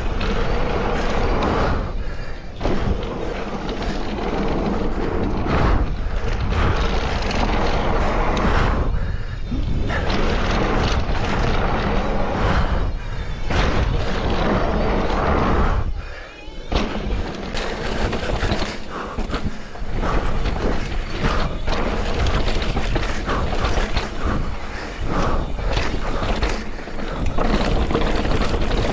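Riding noise from a Scott Ransom mountain bike descending a rough dirt trail: wind buffeting the mic, tyres on dirt and rock, and the bike rattling, with brief drops in level about 2, 9 and 16 seconds in.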